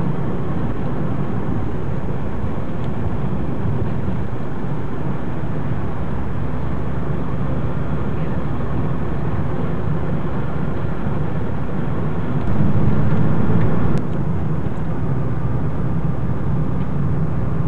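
Car engine and tyre noise heard from inside the cabin while driving on wet, slushy roads: a steady low rumble. It gets louder for about a second and a half about two-thirds of the way through, then cuts back abruptly.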